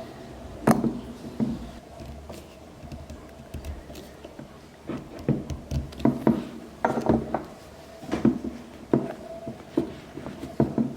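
Irregular knocks and clinks of metal parts being handled and set down, in a cluster through the second half.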